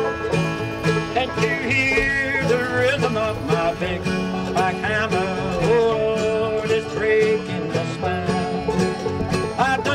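Bluegrass string band playing, with banjo and guitar over a steady beat and a melody line that slides up and down in pitch.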